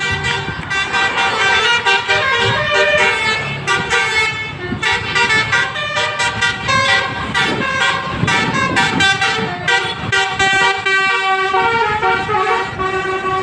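Bus telolet horn playing a tune: a multi-tone horn sounding a rapid run of notes that keep jumping in pitch.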